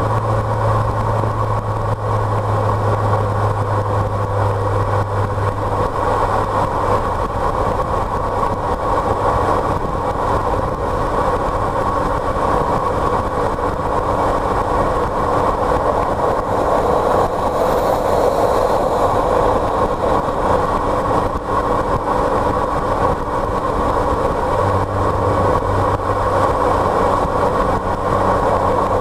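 A car driving steadily on the road: continuous engine drone and road noise, with a low hum that drops away about six seconds in and comes back near the end.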